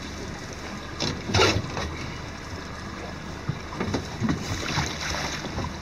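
Water sloshing along the side of a boat as a hooked steelhead is brought to the surface, with a sharp splash about a second and a half in.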